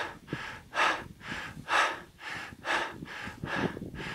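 A person panting hard, quick deep breaths about two a second, out of breath and exhausted after skiing.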